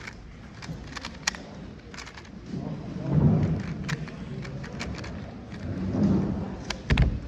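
Hall ambience: a low murmur of voices that swells twice, with scattered sharp clicks throughout, cutting off abruptly at the end.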